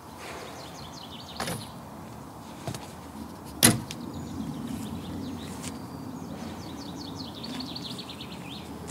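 A few sharp knocks as a jigsaw and ear defenders are set down on a steel workbench, the loudest about three and a half seconds in. Between them a small bird sings quick high trills in the background, a short run near the start and a longer one over the last few seconds.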